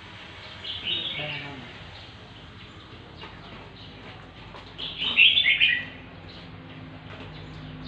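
Two short runs of high-pitched, falling chirping calls from a small animal, one about a second in and a louder one about five seconds in, over a faint low steady hum.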